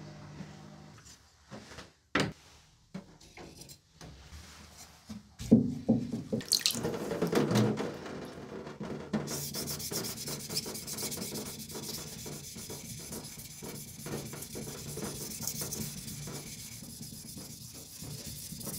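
A sashimi knife's steel blade being stroked back and forth by hand on a wet whetstone: a rasping, watery scrape repeated stroke after stroke, after a few scattered knocks near the start.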